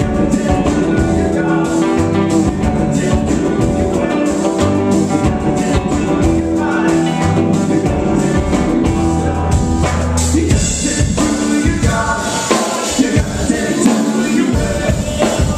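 Live band playing, with electric bass, electric guitars and drum kit, and voices singing. The bass drops out briefly near the end.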